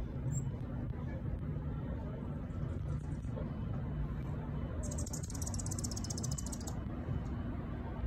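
Steady low outdoor rumble. About five seconds in, a high, rapid pulsing trill lasts about two seconds.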